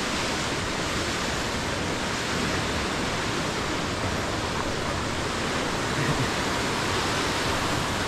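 Steady rushing of a waterfall and its cascading creek, an even roar of falling water with no change in level.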